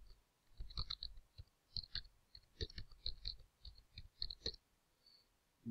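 Computer keyboard typing: a quick, irregular run of key clicks lasting about four seconds, then it stops.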